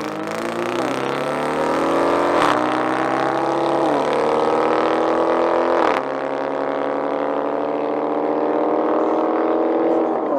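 Car engine under hard acceleration, its revs climbing through the gears with quick drops at the upshifts about two and a half seconds in, at about six seconds and again near the end, each gear pulling longer than the last.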